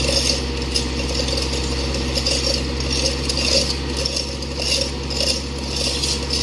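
Excavator diesel engine running steadily while metal parts clank and rattle repeatedly, as the tracks and bucket work in the mud.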